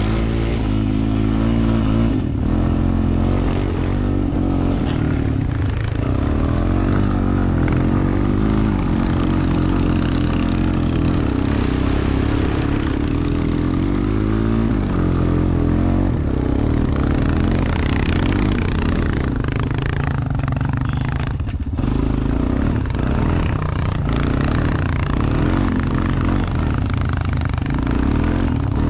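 ATV engine running under the rider while driving through snow, its pitch rising and falling as the throttle opens and eases off.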